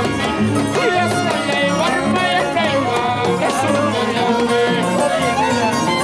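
Several Andean harps and violins playing a folk tune together, with low harp notes repeating in a steady beat under the melody.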